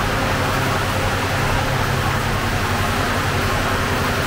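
Steady low hum with a rushing hiss from the fired sangak oven and the extractor hood above it, unchanging throughout.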